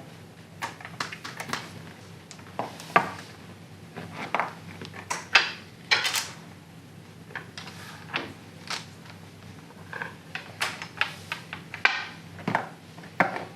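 Mahjong tiles clacking irregularly, one sharp click after another, as players draw and discard them on the table.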